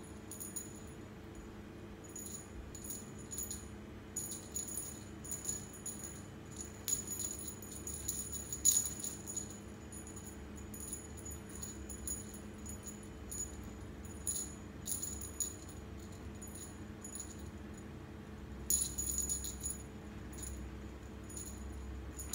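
A cat-wand toy jingling in short irregular shakes as it is flicked about and the cat swats at it, busiest about a third of the way in and again near the end. A faint steady hum runs underneath.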